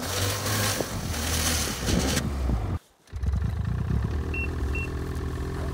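Arctic Cat two-stroke snowmobile engine running with its exhaust outlet blocked by a hand, loud with a strong hiss: the bog that exhaust pluggage causes. After a brief cut, a Ski-Doo Summit X snowmobile engine idles steadily.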